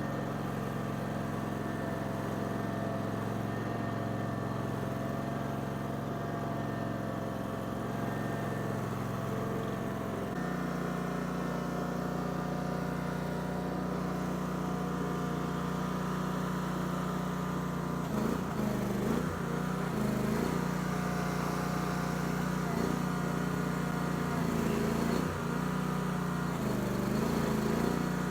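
Barreto 30-SG stump grinder's Briggs & Stratton Vanguard V-twin engine running steadily; about ten seconds in its note steps up. In the last ten seconds its pitch dips briefly several times as the cutting wheel takes load.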